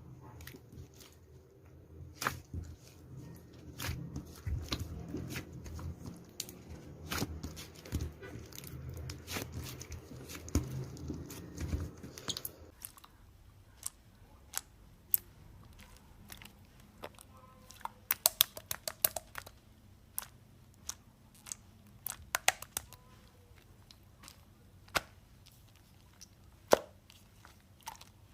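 Close-up chewing and crunching. It is dense, with a low rumble, for the first half. After that it thins to scattered sharp crunches and clicks, with a quick cluster about 18 seconds in.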